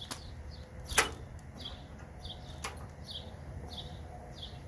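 Two sharp clicks, a loud one about a second in and a fainter one later, as the reassembled mower gear-drive parts are handled. Behind them a bird gives a short high chirp about twice a second.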